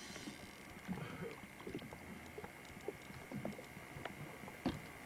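Faint scattered knocks and clicks of gear being handled in a small fishing boat while a hooked fish is played, with one sharper knock near the end. A faint steady high-pitched tone runs underneath.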